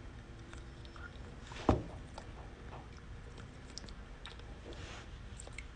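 Small clicks and mouth noises as a candy wrapper is pressed onto the front teeth with the fingers, with one loud sharp thump about a second and a half in.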